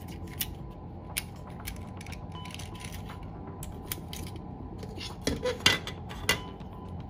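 Plastic clicks and rattles of a black plastic Soviet reloadable Super 8 film cassette being handled and taken apart by hand: a few scattered sharp clicks, then a louder burst of clicks and clatter about five to six and a half seconds in.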